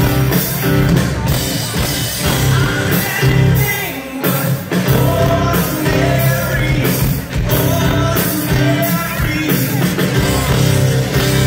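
Live rock band playing through a PA with a man singing lead: drums keeping a steady beat with cymbal hits, bass and electric guitars.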